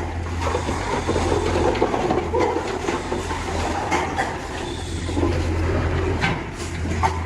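Continuous irregular metallic rattling and clatter, with many small knocks, over a steady low hum. Faint short squeals of piglets show through now and then.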